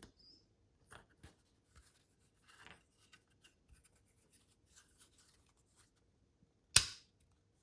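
Faint plastic handling noises, then one sharp click near the end as the metal manual key blade snaps into the Toyota Corolla Verso key fob's new plastic body.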